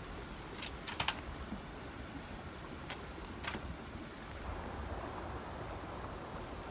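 Light clicks and taps as roasting sweet potatoes are turned over by hand in a charcoal grill's ashes, about five sharp ones in the first few seconds. From about halfway a steady low rush of wind and stream water takes over.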